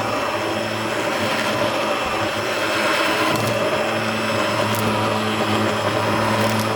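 A small electric motor running steadily, a continuous whirring with a hum that shifts slightly in pitch.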